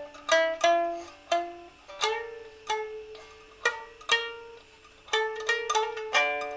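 Solo improvised music on a string instrument: notes plucked or struck one after another and in small chords, each ringing and fading, with a couple of held notes that flutter in quick repeats.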